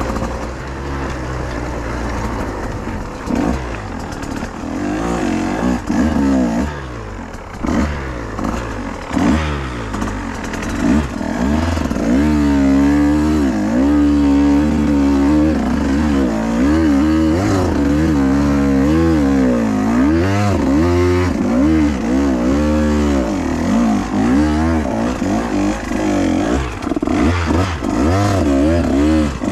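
2024 KTM 150 XC-W TBI's single-cylinder two-stroke engine being ridden hard, its revs rising and falling over and over as the throttle is worked. It grows louder from about ten seconds in.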